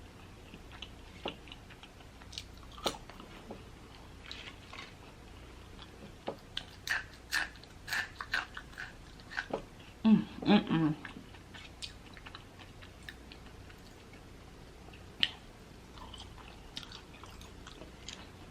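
Close-up chewing and biting of crispy fried lemon pepper chicken wings: scattered crunches and wet mouth clicks. About ten seconds in there is a short hummed vocal sound, the loudest moment.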